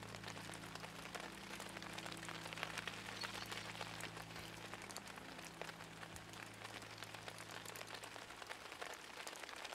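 Light rain falling, a steady patter of many small drops.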